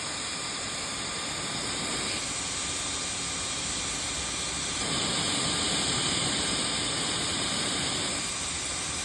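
Steady machine-like whir and hiss, louder for about three seconds in the middle.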